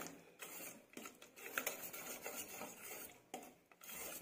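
Wire whisk scraping and clicking against a stainless steel pot while mashing ripe bananas, in faint, irregular strokes.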